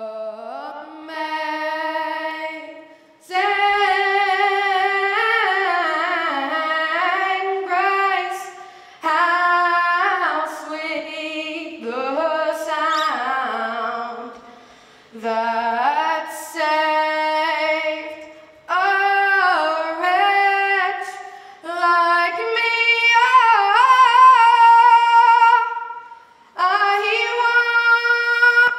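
A single voice singing unaccompanied, in phrases of a few seconds with short breaks between them. A long held note with vibrato comes about three-quarters of the way through.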